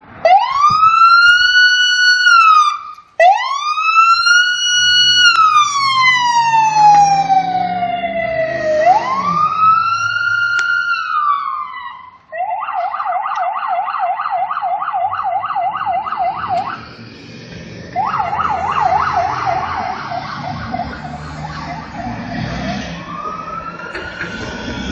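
Fire squad truck's siren running through its cycles: slow rising and falling wails for about twelve seconds, then a fast yelp of about five sweeps a second, a short break, more yelp, and a rising wail again near the end. A low engine and traffic rumble runs underneath from a few seconds in.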